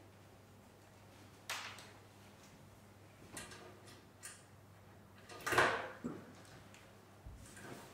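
Sparse, short swishing and sliding noises from a live dance-and-electronics performance. About six sweeps each die away in the room, the loudest about two-thirds of the way through, over a faint steady low hum.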